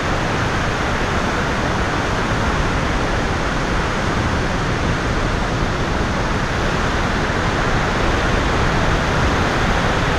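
Steady roar of a nearby waterfall and whitewater river rapids, an even rushing noise that does not let up.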